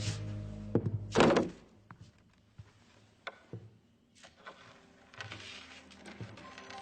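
Music stops, then about a second in a short thump is followed by a loud heavy thunk. Afterwards a few faint knocks and clicks sound in the quiet.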